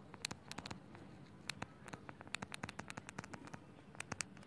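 Stylus tapping and scratching on a tablet's glass screen while handwriting: a faint, quick, irregular run of small ticks.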